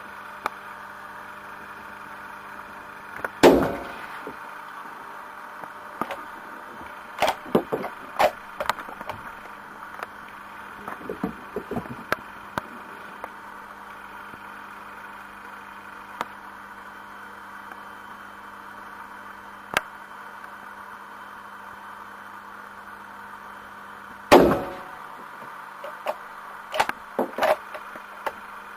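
Two shots from an Enfield No. 1 Mk III .303 bolt-action rifle, about twenty seconds apart, each ringing out briefly. A few seconds after each shot come sharp metallic clicks as the bolt is worked to eject the spent case and chamber the next round.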